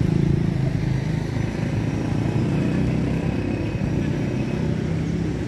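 A motor vehicle engine running steadily with a low, even hum.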